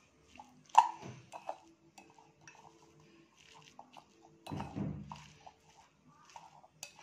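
A spoon stirring a thick mashed potato, onion and sweet corn mixture in a bowl, with one sharp clink against the bowl about a second in, a few lighter taps after it, and a duller scrape about halfway through.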